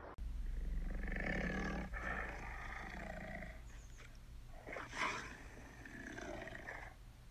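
Tiger roars from an augmented-reality 3D tiger, two long roars, the second louder at its start about five seconds in.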